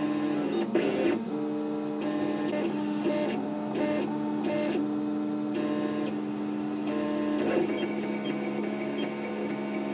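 Home-built 3D printer's stepper motors whining as the hotend traces the first layer of a print, the pitch jumping between a few steady tones with each change of move, over a steady low hum.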